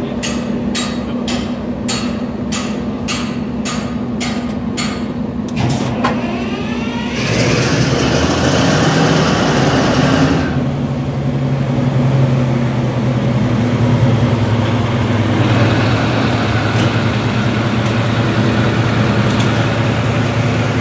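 Cold start of the Caterpillar diesel engine in a ZCU20 diesel-electric locomotive. It opens with regular clicking about twice a second, then a rising whine about six seconds in. The engine catches loudly about seven seconds in and settles a few seconds later into a steady idle.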